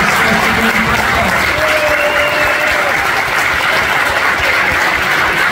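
Audience applause: many people clapping steadily and densely.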